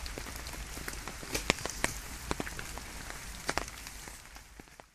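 Steady rain falling, with scattered sharp taps of single drops striking close by. It fades out near the end.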